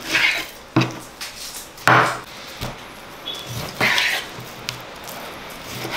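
Kitchen knife slicing through raw horse meat on a wooden board: a few separate cutting strokes, each a brief rasp with a soft knock as the blade meets the wood.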